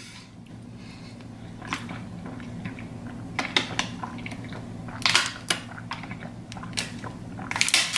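Thin plastic water bottle crinkling in the hand as it is opened and drunk from, a scattering of sharp crackles and clicks, heaviest about three and a half seconds in, five seconds in and near the end. A steady low hum runs underneath.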